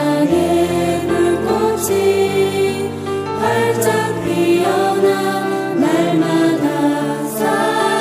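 Background music: a choral song with voices singing held notes over a sustained bass accompaniment.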